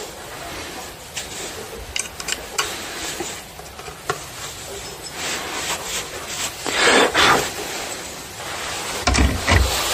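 A flat metal tool scraping in the groove of a chainsaw guide bar, with light metallic clinks as the bar is handled. A longer, louder scrape comes about seven seconds in, and a few low knocks follow near the end.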